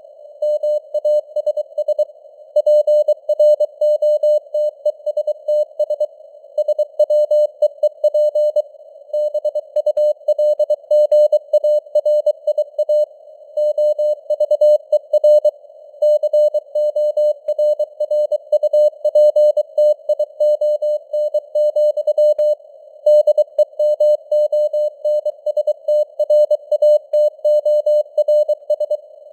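Morse code at 23 words per minute: a single mid-pitched tone keyed on and off in dots and dashes, with short pauses between words. It sits in a narrow band of simulated receiver static, like a CW signal heard on a ham radio receiver.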